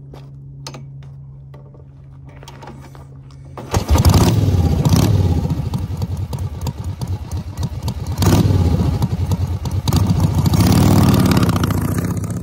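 Harley-Davidson V-twin motorcycle idling, then revving hard and pulling away about four seconds in. Its engine runs loud and pulsing, dips briefly about eight seconds in, then picks up again before starting to fade near the end.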